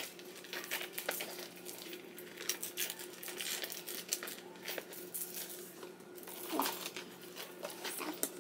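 The metal chain strap of a Gucci GG Mini Dionysus bag clicking and rustling as it is handled and crossed over to shorten it, many small irregular clicks.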